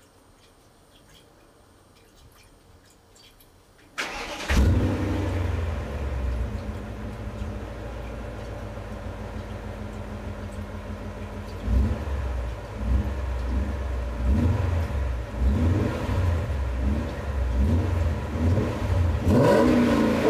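BMW M5 E39's V8 with a Tubi aftermarket exhaust starting about four seconds in and settling into a steady idle. From about halfway it is blipped with short revs about once a second, with a bigger rev near the end.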